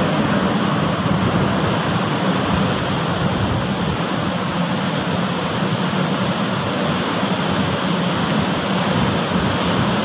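Strong storm wind rushing through trees and buffeting the microphone: a loud, steady, dense roar.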